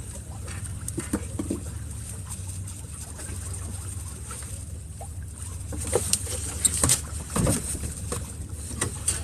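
Fishing boat's engine running with a steady low hum, with scattered knocks and clatter on board that grow louder and busier in the last few seconds.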